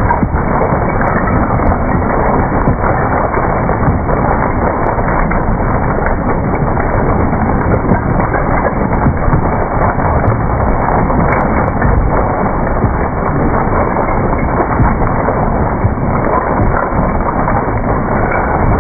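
Raveo HP hydraulic cone crusher running with a full, choke-fed chamber: rock cracking and grinding in a steady, dense clatter of crunches. The load stays even throughout, a sign of the crusher handling heavy-duty full-chamber work.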